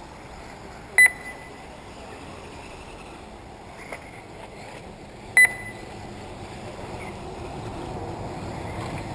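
Two short, loud electronic beeps from an RC race lap-timing system, each a single high tone, about four seconds apart. A steady background noise runs under them.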